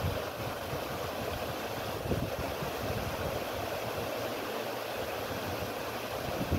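Stormwater runoff gushing out of a culvert and churning into a grassy drainage ditch: a steady rush of water. Gusts of wind rumble on the microphone underneath.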